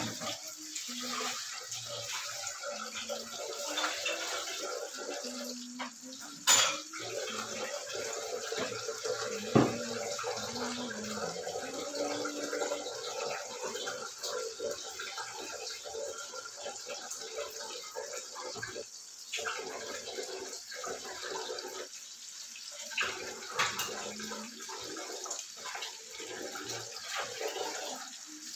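Chicken pieces frying in hot oil in a nonstick pan: a steady sizzle, with two sharp clicks a few seconds apart.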